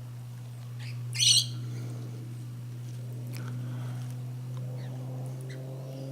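A bird gives one loud, short chirp about a second in, and a few faint short calls follow, over a steady low hum.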